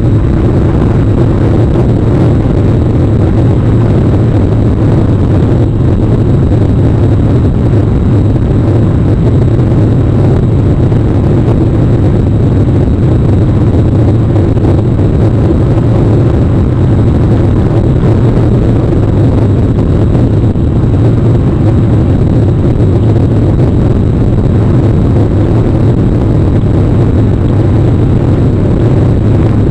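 Steady, loud, low rumbling noise from rain on an outdoor webcam's microphone, unbroken and without distinct events.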